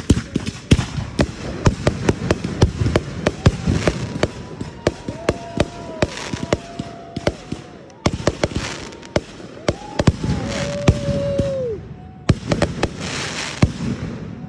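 Consumer fireworks going off in a rapid barrage: a dense run of sharp bangs and pops, with stretches of crackling hiss about eight seconds in and again near the end.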